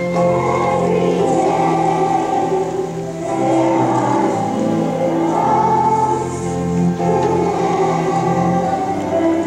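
Slow choral music: a choir singing long held chords.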